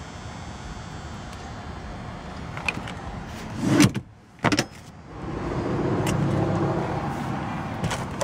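Handling noises inside a car: a few knocks and a louder clunk from the manual passenger seat being moved, about halfway through, then a steadier rubbing noise.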